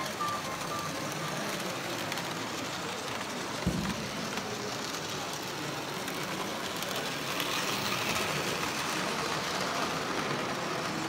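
Steady background noise of a busy exhibition hall, an even murmur with no clear single source, and one dull knock just under four seconds in.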